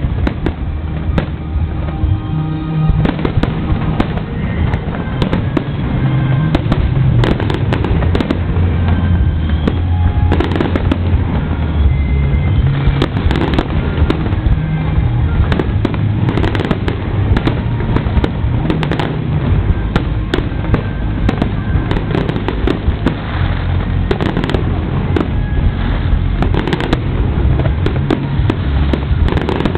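Fireworks display: aerial shells bursting and crackling in rapid, continuous succession, with music playing underneath.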